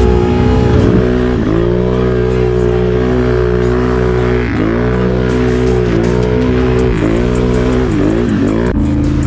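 Can-Am Renegade ATV's V-twin engine held at high revs while the quad churns through deep mud. Its pitch sags and climbs back about five times as the engine bogs under load and the wheels break free, then settles lower near the end.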